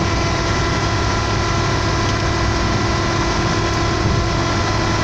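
Steady in-cabin driving noise of a Volkswagen Saveiro pickup at highway speed: a constant low engine and road drone with several steady high tones running over it.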